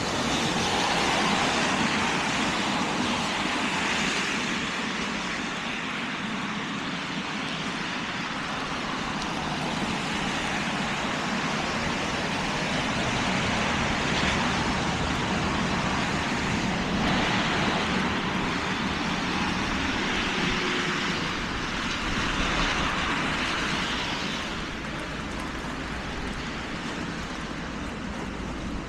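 Steady hiss of a wet city street: traffic on rain-soaked roads mixed with rain, swelling slowly and easing a little near the end.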